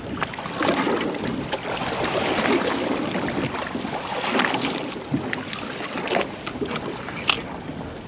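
Water slapping against the hull of a small rigid inflatable boat lying with its engine off, mixed with wind on the microphone, rising and falling unevenly. A few sharp clicks, the clearest about seven seconds in.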